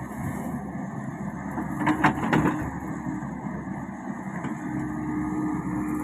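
Komatsu PC55 mini excavator's diesel engine running steadily, with three sharp knocks close together about two seconds in.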